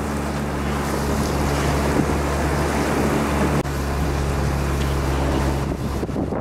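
Small boat's engine running steadily at low speed, with wind and water noise over it; the engine note fades near the end.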